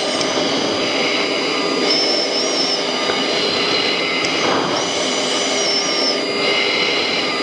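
Steady jet engine and airflow noise heard from inside the cockpit of a jet aircraft in flight. A high wavering whine comes and goes twice over it.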